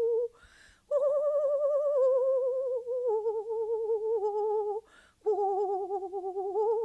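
A woman's voice toning long held notes on an open hum-like vowel with a slow vibrato, stepping down in pitch a few times and rising again near the end. She takes two quick breaths, about half a second in and about five seconds in.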